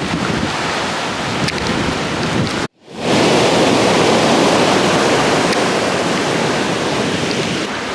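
Sea surf breaking with strong wind buffeting the microphone. The sound drops out for a moment about two and a half seconds in, then comes back a little louder.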